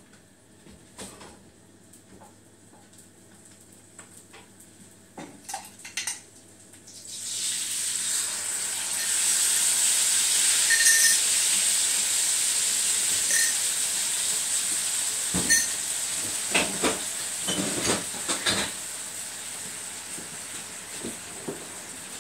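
Home-made tomato passata poured into a frying pan of hot garlic oil: after a few light clinks, a loud sizzle starts suddenly about seven seconds in and slowly fades. Near the middle, a few knocks and scrapes in the pan sound over the sizzle.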